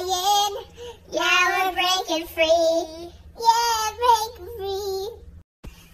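A child singing solo without accompaniment, in phrases of held, sliding notes separated by short breaths, with a brief drop to silence near the end.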